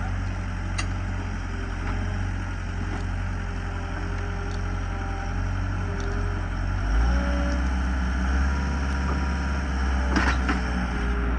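Skid steer engine running steadily, driving a log splitter's hydraulics. About seven seconds in, its note deepens and grows louder as it takes load, and a sharp crack comes near the end.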